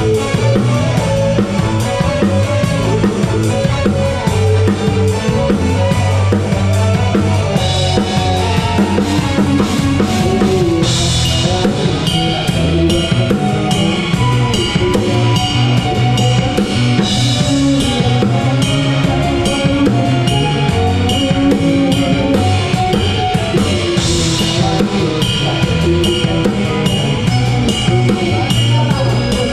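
Live band music heard from right at the drum kit, with the drums loudest: kick and snare keeping a steady beat over a bass line, and cymbal crashes ringing out several times.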